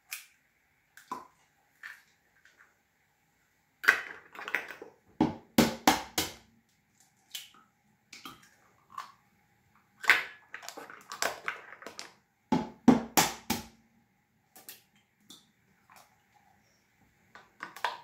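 Eggs being cracked on the rim of a plastic measuring jug: sharp taps and crackles of breaking eggshell, in two busy clusters a few seconds apart, with scattered single clicks between.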